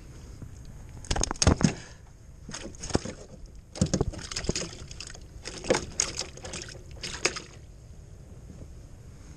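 Several bursts of rapid knocking and rattling against the aluminum floor and hull of a small jon boat, spread over about six seconds.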